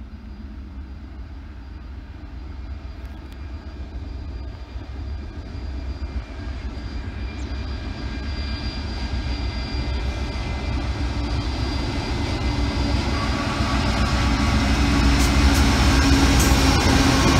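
Freight train hauled by Pacific National NR class diesel-electric locomotive NR37 with TT113 behind, approaching and passing close by: a low engine rumble with a steady hum grows louder as it nears, with sharp clicks from the wheels near the end as the locomotives draw level.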